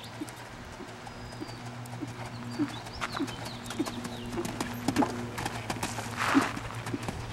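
Horse's hooves striking a gravel arena at a walk, irregular clip-clop hoofbeats. A short, louder rush of noise comes near the end.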